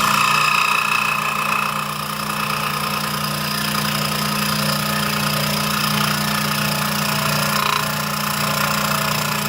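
Scroll saw running, its reciprocating blade cutting an inside shape: a steady motor hum with a higher buzz of the blade in the workpiece, strongest in the first couple of seconds.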